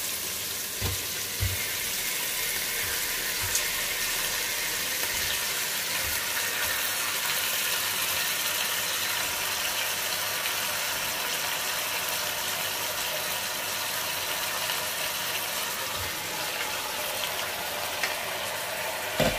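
Raw chicken pieces sizzling in hot oil with sautéed onion, garlic and tomato in a stainless steel pot: a steady hiss, with a few low thumps as pieces drop in and are moved.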